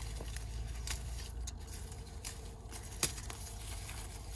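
Apple-tree leaves and twigs rustling, with a few sharp clicks, as a hand moves through a fruit-laden branch, over a low steady rumble.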